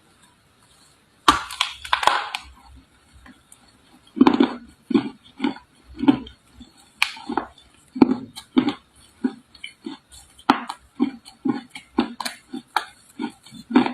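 Red clay bitten with a loud crunch about a second in, then chewed steadily at about two crunching chews a second.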